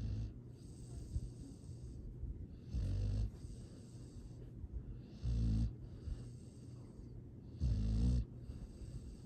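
Dog snoring: three deep snores about two and a half seconds apart, with softer, airy breaths between them.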